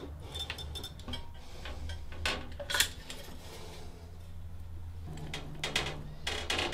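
Scattered sharp clicks of a caulking gun being squeezed and handled, the two loudest about two and three seconds in, over a low steady hum.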